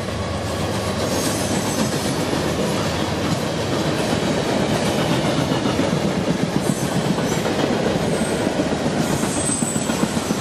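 Freight cars of a long train rolling past at speed, a steady heavy rumble with rapid clattering of wheels over the rail joints. A thin, faint high squeal comes in twice near the end.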